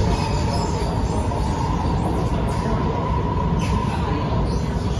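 Cabin noise of an Alstom Movia R151 metro train running between stations: a steady low rumble of wheels on rail, with a steady high tone over it.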